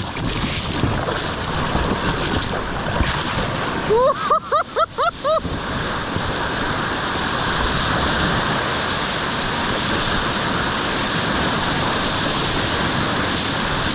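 Steady rushing of Colorado River whitewater around a kayak running a rapid. About four seconds in comes a quick string of short, repeated whooping yells from a paddler.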